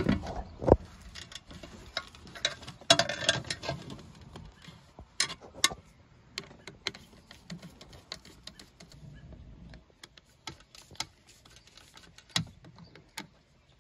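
Scattered light clicks and taps of hand work on a 50-amp RV receptacle: wires pushed into the terminals and the terminal screws turned with a screwdriver, metal on plastic and metal. The clicks come irregularly, with a sharper click about a second in.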